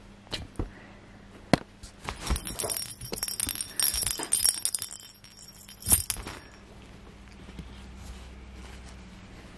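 Rustling and crackling as a ragdoll kitten wriggles and paws at a hand inside a fabric pop-up cube, with scattered clicks and a sharp knock about six seconds in, then quiet.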